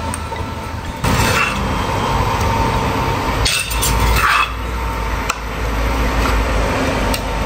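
Metal ladle and spoon scraping and clinking against a clay mortar and stirring a pan of curry: two bursts of scraping, about a second in and again around the four-second mark, then a couple of sharp clinks.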